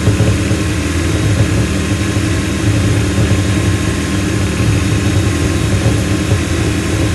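Yamaha jet boat's four-stroke engine running steadily at a fast idle of about 2,500 RPM, held there in no-wake mode so that fogging oil can be sprayed into its throttle body for winter storage.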